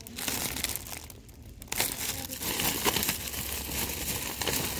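Clear plastic salad bags crinkling as they are handled, in two spells with a short lull about a second in.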